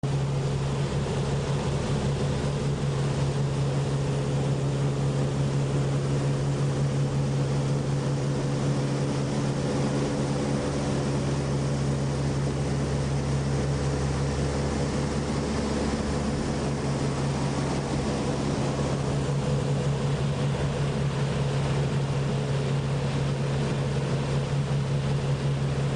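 Motorboat engine running under way at a steady speed, a constant low drone over the rushing hiss of water.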